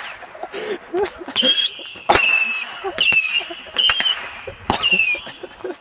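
Firework rockets going off one after another: about five short, high whistles with several sharp cracks among them.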